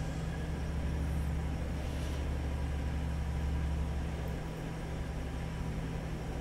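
Steady low mechanical hum with a rumble, easing off about four seconds in.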